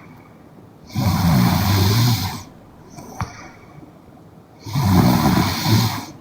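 A young woman snoring in her sleep: two loud snores, each about a second and a half long and about four seconds apart, with softer breathing between them and a small click midway.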